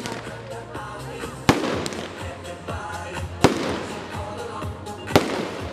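Aerial fireworks shells bursting: three sharp bangs about two seconds apart, each trailing off, with music playing underneath.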